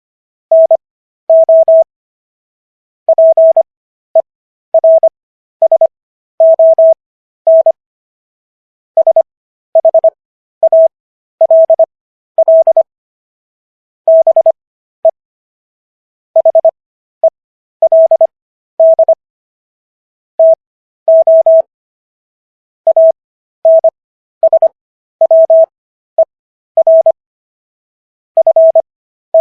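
Morse code sent as a single steady mid-pitched beep tone, keyed in short and long elements. The characters go by quickly, separated by long gaps: Farnsworth timing, with characters at 25 words per minute and an overall speed of 15 words per minute. It is spelling out the Fifth Amendment of the US Constitution.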